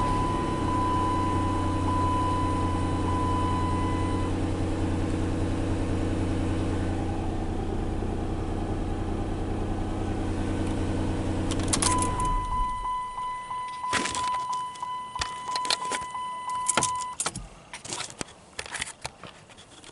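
Car engine idling steadily, then switched off about twelve seconds in. A steady high warning tone sounds for the first few seconds and again for about five seconds after the engine stops, followed by clicks, knocks and keys jangling.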